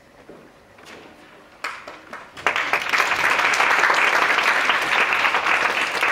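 Audience applauding: a few scattered claps, then full applause breaking out about two and a half seconds in.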